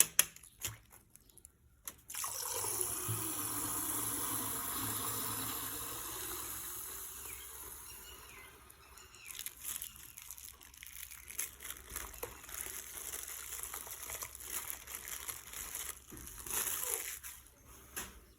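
Coloured water pouring out of a punctured plastic bag, a steady splashing that fades over about six seconds, followed by the crinkling and crackling of the wet plastic bag being handled and torn open.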